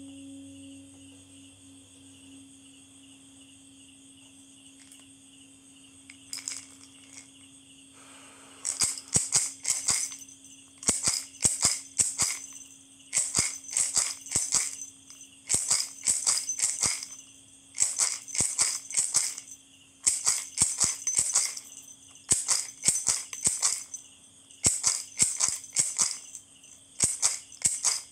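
A singing bowl's lingering hum fading away over the first several seconds. Then a hand-held rattle with a round head is shaken in short, even bursts of quick strokes, about one burst every two seconds.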